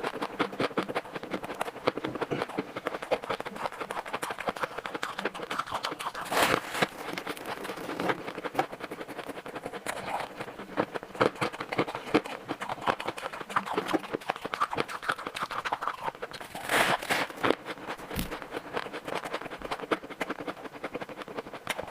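Shaved ice being bitten and chewed close to the microphone: a dense, uninterrupted run of crisp crunches and crackles, with louder bites about six seconds in and again near seventeen seconds.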